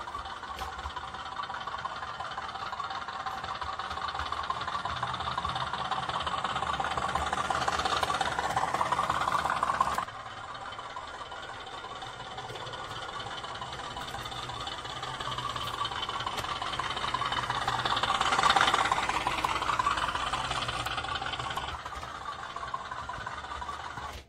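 Sound-fitted OO gauge model diesel locomotive, its decoder playing a diesel engine running through the model's small speaker. It grows louder, breaks off suddenly about ten seconds in, then swells again to its loudest a little after three quarters of the way through.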